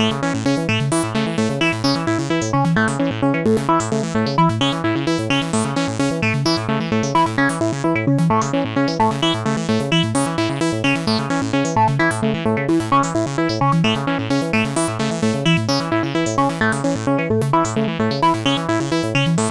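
Synthesizer ringtone tune made on the Sytrus FM synth in FL Studio: a steady stream of quick, repeating electronic notes over a pulsing bass line.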